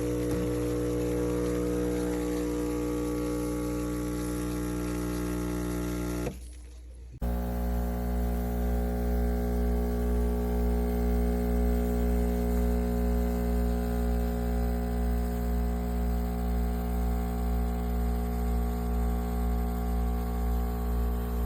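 Espresso machine's vibratory pump humming steadily as it pumps water. It breaks off for about a second roughly six seconds in, then starts again with a slight regular pulsing.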